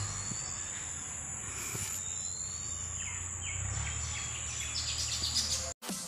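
Garden ambience: insects trilling in one steady high tone, with a few short bird chirps from about three to five seconds in, over a low steady hum. It cuts off abruptly just before the end.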